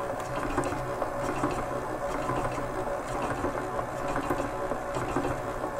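Electric mixer running steadily on speed 3, beating butter-cake batter as an egg is mixed in: an even motor hum with faint ticks of the beaters.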